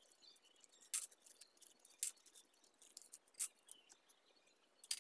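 Light clicks and taps of plastic modular switch-board parts being handled: four sharp clicks roughly a second apart, with fainter ticks in between.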